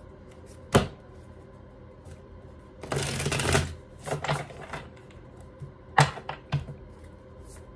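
A tarot deck shuffled by hand: a few sharp card clicks and taps, with a dense rustling burst of cards riffling about three seconds in and smaller flutters just after.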